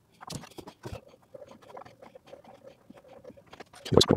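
Screws being taken out from inside the front of a Bambu P1S 3D printer: small metallic clicks and scratches of the tool and screws, then one loud knock about four seconds in.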